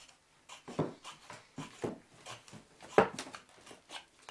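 Knife whittling a wooden figure: short scraping cuts at irregular intervals, the loudest about a second in and again about three seconds in.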